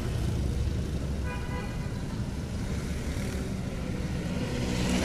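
Steady low rumble of road traffic, with a brief faint horn tone a little over a second in and a vehicle engine getting louder near the end.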